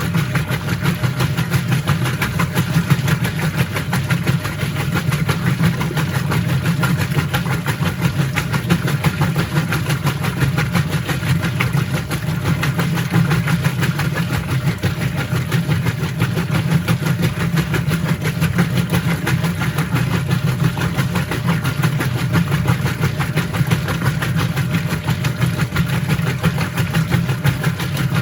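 Whirlpool top-load washing machine running mid-cycle: a steady motor hum with an even rushing noise over it, unbroken throughout.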